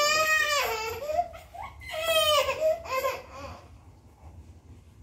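A baby's high-pitched vocalising, somewhere between wailing and squealing: one long call at the start, another about two seconds in and a short one about three seconds in, then it goes quieter.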